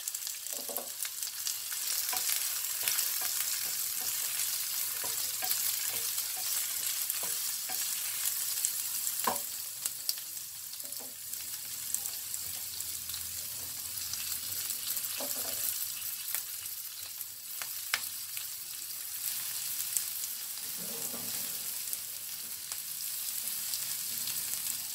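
Sliced onions and slit green chillies sizzling in hot oil in a frying pan, a steady hiss with a few light knocks as they are stirred.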